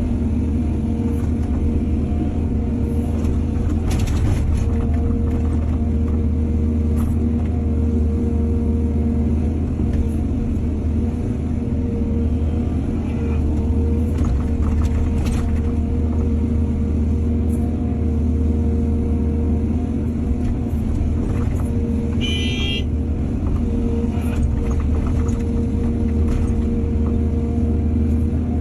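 Excavator's diesel engine running steadily with a deep hum, with a few sharp knocks along the way and a brief high squeal about 22 seconds in.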